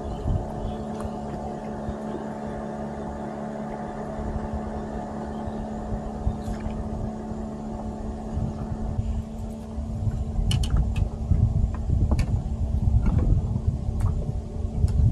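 A boat's motor running steadily with an even hum, under a low, uneven rumble that grows louder in the second half, and a few light clicks.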